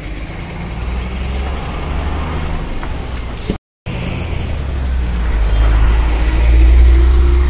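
A heavy road vehicle's engine rumbles past on the bridge and grows louder toward the end. The sound cuts out completely for a moment about three and a half seconds in.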